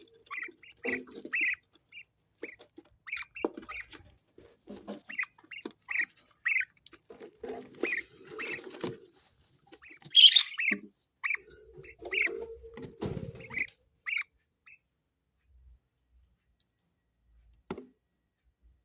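Pet parrot giving short chirps, one or two a second, with one louder, harsher squawk about ten seconds in; it falls silent for the last few seconds.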